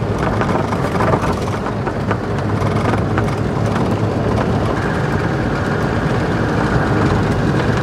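Land Rover Defender Td5 driving along a rough, patched country lane: a steady, loud rumble of its five-cylinder diesel engine and road noise.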